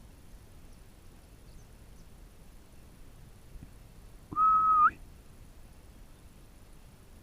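A single loud whistle, held on one pitch for about half a second and flicking upward just before it cuts off, a few seconds in.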